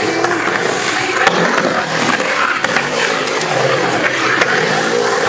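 Skateboard wheels rolling and carving around a concrete bowl: a continuous rolling roar that rises and falls with the skater's speed, with a few sharp clicks scattered through it.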